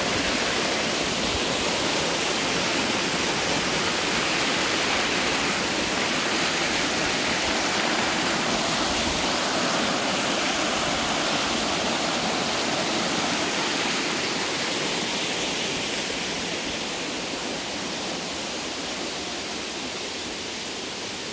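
Waterfall rushing: a steady wash of falling water that grows slowly fainter over the last several seconds.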